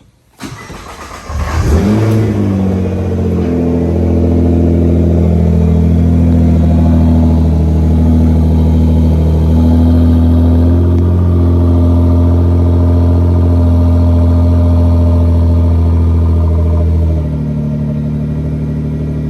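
Nissan R35 GT-R's twin-turbo V6 cold-starting on its stock exhaust. The starter cranks briefly, the engine catches about two seconds in with a rising flare of revs, then settles into a steady, really loud high cold idle. About three-quarters of the way through, the idle drops lower and quieter as the fast-idle warm-up stage eases off.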